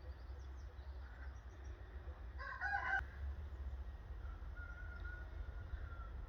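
A rooster crowing: a short, loud call about two and a half seconds in, then a fainter, drawn-out crow near the end, over a steady low rumble.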